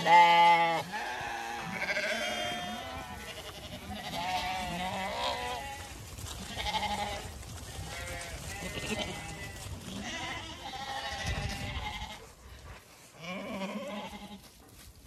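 Zwartbles sheep bleating over and over as the flock moves, calls overlapping one another, the loudest right at the start.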